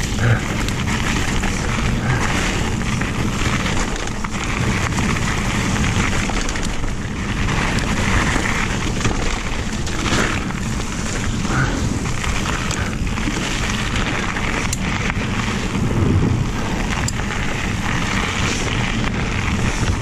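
Mountain bike descending a gravel singletrack at speed: tyres crunching over loose stones, with wind buffeting the microphone and occasional knocks and rattles from the bike.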